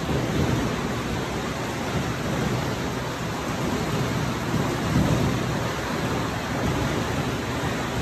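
Steady rushing water noise from an indoor spa's hot tub and pool.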